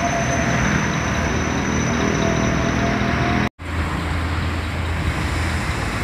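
Road traffic noise dominated by the low drone of large bus engines, steady throughout. The sound breaks off for an instant about three and a half seconds in, and a steadier low engine hum follows.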